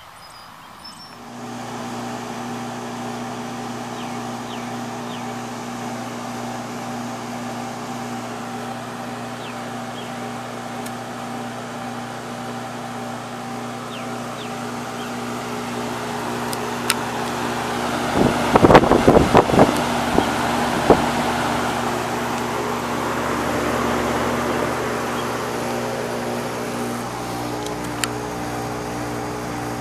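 Outdoor heat pump unit running, coming in about a second in: a steady compressor hum with a fan rushing over it. A quick cluster of knocks or rattles a little past halfway is the loudest moment.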